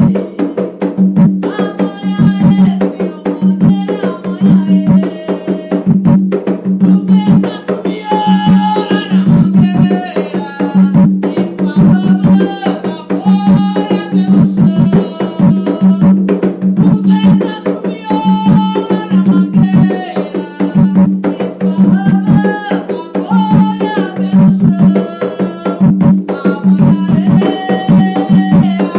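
Umbanda ponto: atabaque hand drums play a steady, fast beat under a sung chant melody.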